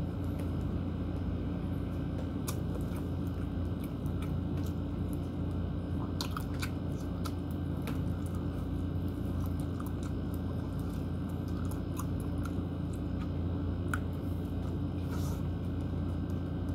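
A person chewing and biting saucy lamb meat off the bone, with scattered small wet clicks and smacks. A steady low hum runs underneath.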